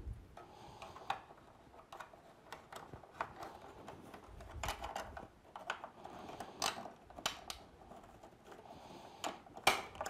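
Irregular small plastic clicks, taps and scrapes of a battery being pushed and fiddled into the battery compartment of a vintage Mattel Snake Mountain playset, a tight fit that is hard to get in. A denser flurry of clicks comes about halfway through, and a sharp click near the end.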